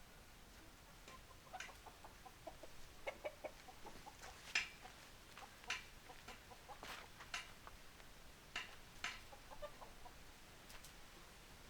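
Chickens clucking quietly in short, scattered notes, mixed with sharp irregular clicks.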